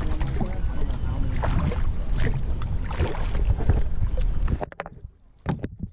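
Wind buffeting the microphone of a camera mounted on a moving kayak, a loud low rumble broken by short knocks. About four and a half seconds in the rumble cuts off suddenly, leaving a few sharp clicks.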